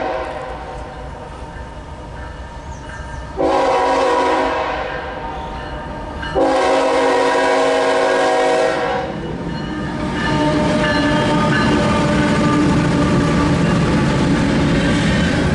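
CSX diesel freight locomotive sounding its multi-chime air horn: one blast cutting off just after the start, then two long blasts about three and six seconds later. After that the locomotive's engine and steel wheels rumble past close by, growing louder.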